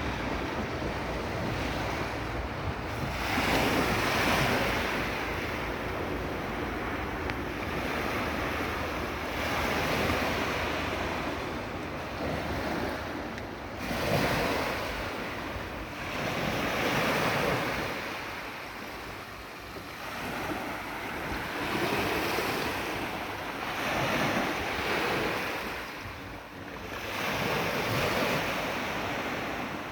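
Sea waves breaking and washing in, surging every three to six seconds, with wind buffeting the microphone.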